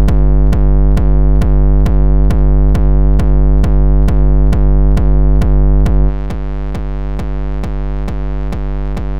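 A looped 909 kick drum heavily distorted through FabFilter Volcano 3 into a hard-dance kick, hitting about four times a second with a droning pitched tail between hits, its filter peak modulated by an envelope generator. About six seconds in it gets quieter and loses some of its low end as the settings are adjusted.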